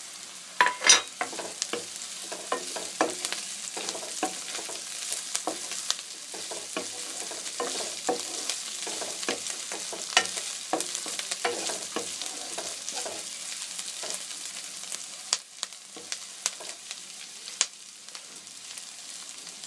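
Sliced onions and ground ginger sizzling in hot oil in a non-stick kadai, stirred with a wooden spatula that scrapes and taps against the pan. The loudest tap comes about a second in, and the stirring thins out in the last few seconds while the sizzle goes on.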